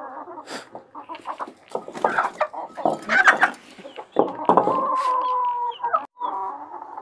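Australorp and desi hens clucking and calling while they feed, a run of short calls. A longer drawn-out call comes about four and a half seconds in.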